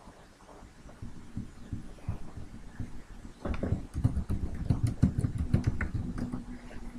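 Typing on a computer keyboard: scattered key taps, then a quick run of clicks and low thuds from about three and a half seconds in as a search term is typed.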